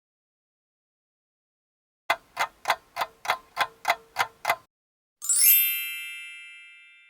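Nine evenly spaced ticks, about three or four a second, then a bright ding that swells and rings out, fading away over about two seconds.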